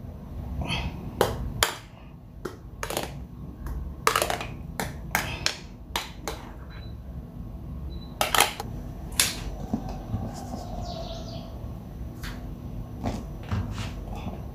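Irregular clicks and knocks of a spoon against a plastic container and glass mixing bowls as thick whipped ice-cream mixture is scooped and spread into layers, over a low steady hum.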